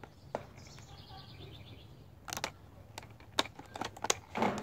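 Stiff plastic lure packaging being pried open by hand: a series of sharp clicks and crackles starting a little over two seconds in. A bird chirps in quick repeated notes in the background about a second in.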